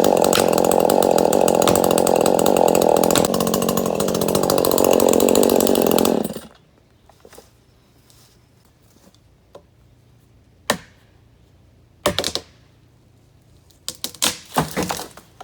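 Two-stroke chainsaw running at high revs, cut off suddenly about six seconds in. After that, a few short, sharp knocks.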